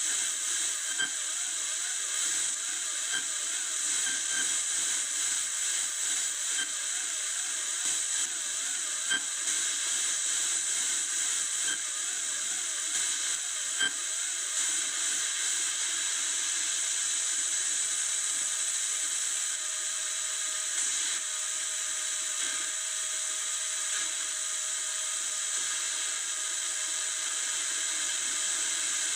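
Audio output of a six-channel signal detector picking up a transmitting circuit on channels 4 and 5: a steady hiss of static with a faint warbling tone that settles into a steady tone past the middle, and soft blips about every two seconds in the first half.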